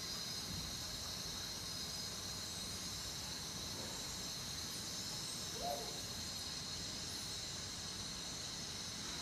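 Steady background hiss with a faint high, even ringing band and a low rumble. One brief, short sound stands out a little past halfway.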